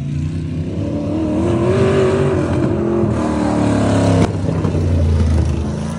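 Winged dirt-track sprint car's V8 engine running hard on the straight, rising in pitch and loudness as it comes near, then dropping off abruptly about four seconds in as it goes past, with a lower engine note after.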